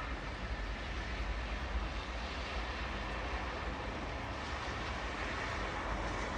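Steady rain falling, an even hiss, over a constant low rumble.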